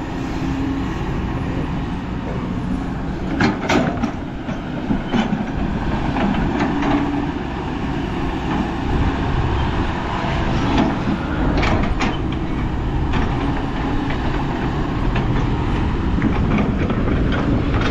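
Heavy diesel machinery running steadily, with sharp metallic clanks about three and a half seconds in and again near twelve seconds.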